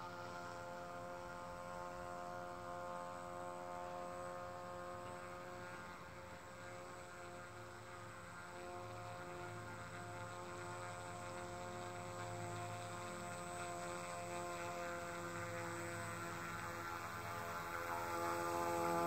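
Hand-made RC fan boat's motor and air propeller running at a distance: a steady hum made of several tones that drift slightly in pitch. It grows louder near the end as the boat comes closer.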